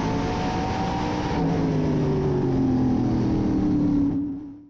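A NASCAR Modified race car's V8 engine running at racing speed, heard from inside the cockpit. About a second and a half in, the engine note slowly drops in pitch. It then fades out near the end.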